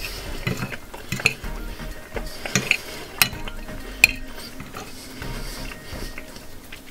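Metal knife and fork clinking and scraping on a ceramic plate while a flaky puff-pastry roll is cut, with a few sharp clicks that are spread out over the first four seconds and then thin out.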